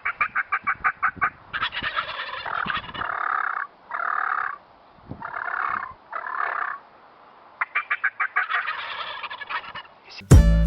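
Wild turkey gobblers gobbling: quick rattling gobbles at the start and again a little past the middle, with longer drawn-out calls between them. Music starts just before the end.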